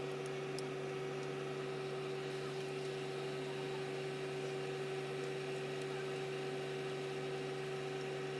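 A machine engine running steadily at idle, a constant hum at an even pitch.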